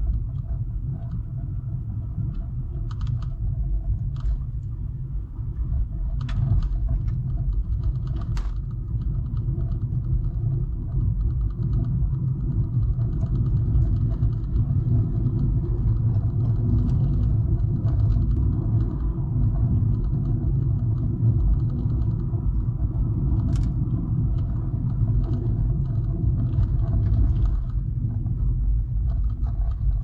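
A car driving, with a steady low rumble of engine and tyres on the road. A few faint clicks and rattles come through now and then.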